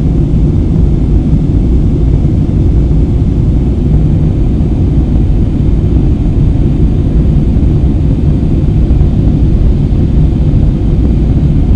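Steady low rumble of a jet airliner's engines and airflow heard inside the passenger cabin during the climb after takeoff.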